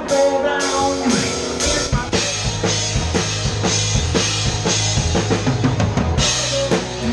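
Rock band playing live with the drum kit loudest: sustained guitar and bass notes at first, then the drummer comes in hard about a second and a half in with a fast kick-and-snare pattern over a steady bass line, and a cymbal crash near the end.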